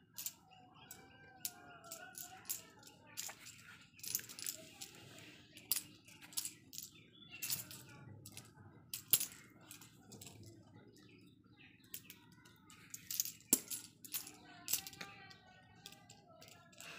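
A small jingling cat toy, the ball on a wand toy's string, rattling and clinking in irregular bursts as a kitten bats and grabs at it.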